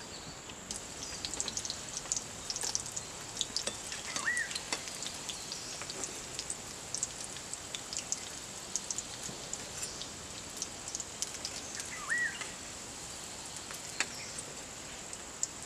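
Scattered light crackling and popping from a wood-fired hearth with a wok of frying oil, thinning out near the end, over a steady high insect drone. Two short chirps come about four and twelve seconds in.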